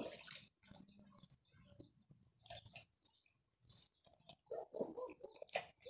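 Bare hands rubbing a wet chermoula marinade into a raw whole chicken: irregular soft wet squelches and slaps, sparse at first and more frequent in the second half.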